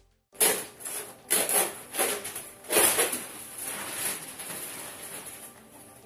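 Plastic film and packaging being pulled and crumpled off a new refrigerator: a run of loud rustles and knocks in the first three seconds, then quieter rustling.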